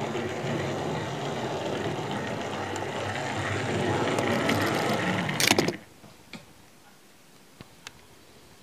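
Tri-ang dock shunter model locomotive running along the track: a steady mechanical whirr of motor and wheels that grows louder as it approaches. About five and a half seconds in there is a brief loud clatter, then the sound stops suddenly and only a few faint ticks follow.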